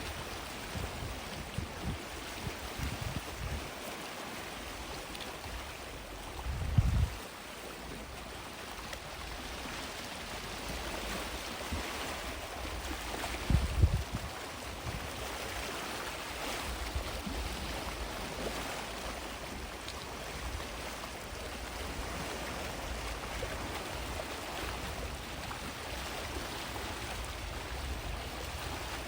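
Gentle sea waves washing onto a sandy shore: a steady wash of surf with soft swells. Two brief low rumbles break through, about seven and fourteen seconds in.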